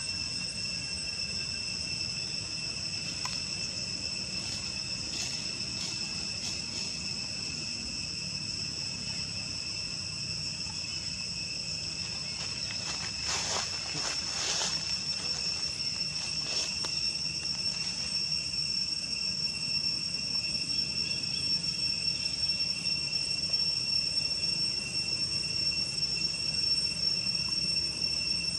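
Insects droning steadily in the trees, one unbroken high-pitched whine. A few short crackles break in, most of them about halfway through.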